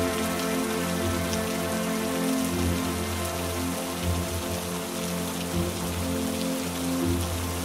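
Steady heavy rain falling, with soft background music of long held low notes underneath.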